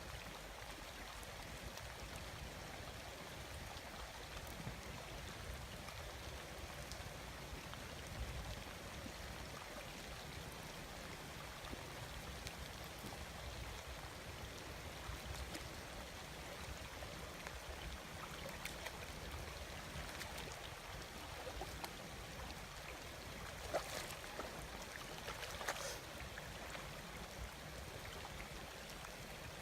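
Steady trickling, gurgling water, with faint ticks and two brief louder splashes near the end.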